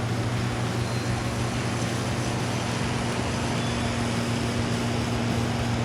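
A heavy truck's engine running steadily at a constant pitch, a low even drone with no changes.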